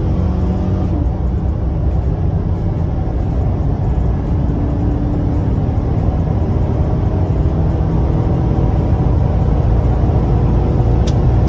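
Chevrolet Silverado engine under hard acceleration at high revs, heard from inside the cab with a K&N aftermarket intake fitted. Its steady low rumble is mixed with road noise as speed climbs.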